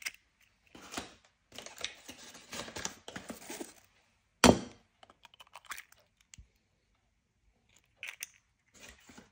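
A fork mashing cottage cheese with two eggs in a bowl: bursts of scraping with short pauses, and one sharp knock about four and a half seconds in.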